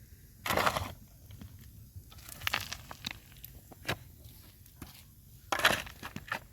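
Intermittent crunching and crinkling noises, several separate bursts with short clicks in between, like material being handled or crushed.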